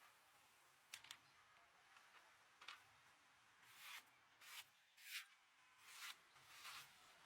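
Faint short scraping strokes, about seven of them spread over several seconds, some swelling and fading.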